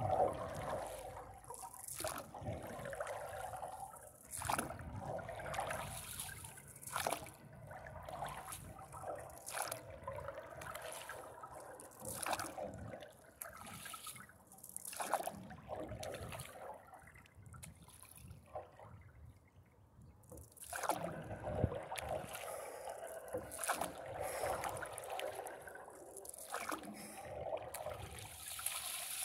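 Paddle strokes in lake water, a splash and drip about every two seconds, with water trickling and lapping along a paddleboard's hull; the strokes pause for a few seconds past the middle.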